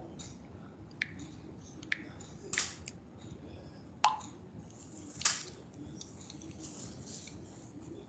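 A handful of scattered clicks and knocks, about five in all and the loudest about four seconds in, over faint room noise. They are handling noises at a desk, picked up by a headset microphone.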